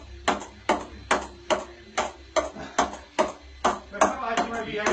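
A ping-pong ball rallied on a mini table tennis table, clicking off small paddles and the board in an even rhythm of about two and a half hits a second. Voices come in near the end.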